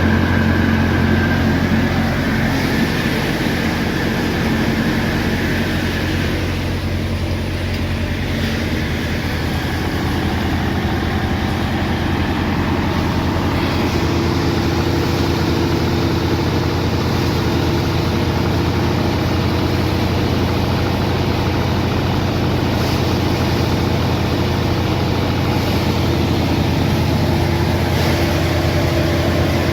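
Farm machine's engine running steadily at a constant speed.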